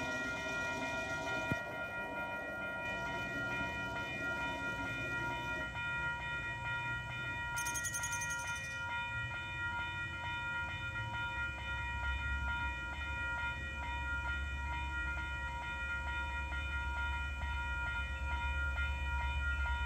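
Railroad grade-crossing bell ringing steadily with evenly repeated strikes, warning of an approaching train. From about halfway through, a low rumble of the oncoming commuter train builds underneath.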